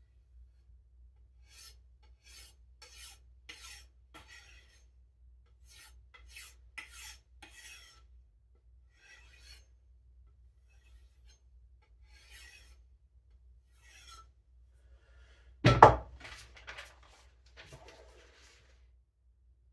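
A freshly sharpened knife edge being stropped: a series of short rubbing strokes, about two a second at first, growing sparser and fainter. About sixteen seconds in comes a single sharp knock, the loudest sound.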